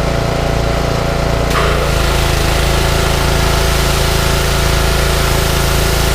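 Power washer running steadily with an engine-like drone. About a second and a half in, a louder hiss of spray joins it.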